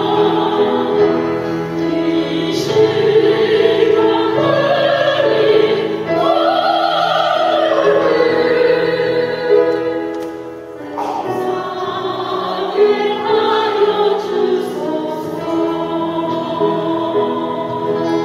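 A vocal group singing a hymn in harmony, with long held notes. The sound dips briefly about ten seconds in before the voices come back in.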